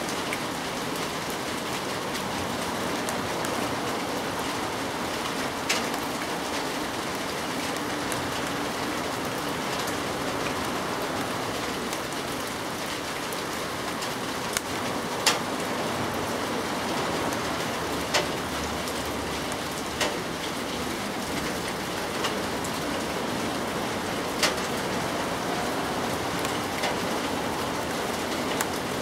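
Steady rain falling, with a few sharper drops or drips spaced several seconds apart striking a surface close by.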